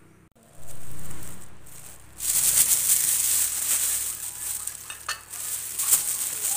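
Plastic bag rustling and crinkling as it is handled, starting about two seconds in and going on in quick, uneven crackles.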